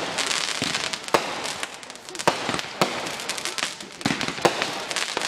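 Aerial fireworks going off: sharp bangs and pops about once a second over the crackle of bursting stars.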